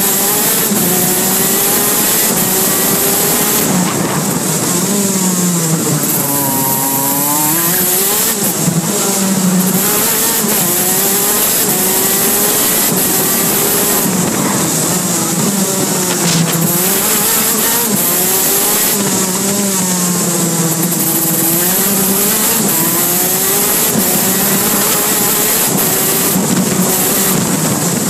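125cc two-stroke KZ2 shifter kart engine heard from on board during a lap, its pitch climbing under acceleration and dropping under braking for corners, again and again, with the deepest drop about seven seconds in.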